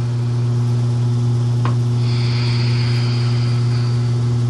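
A steady low hum with fainter overtones above it. A single soft click comes about halfway in, and a faint airy hiss follows for a couple of seconds.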